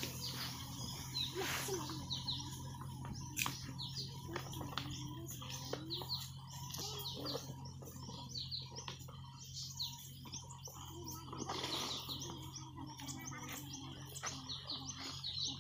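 Small birds chirping in quick, repeated short calls, over a faint steady low hum, with a few brief rustles as the flat plastic hose is handled.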